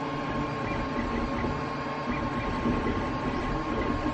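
Steady mechanical hum and hiss, like a fan or other running machine, with a constant high whine above it and no distinct knocks or clicks.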